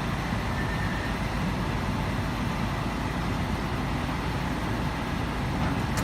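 Diesel engine of a heavy earthmoving machine, likely the Komatsu D85ESS bulldozer, running steadily with an even, rapid low pulsing.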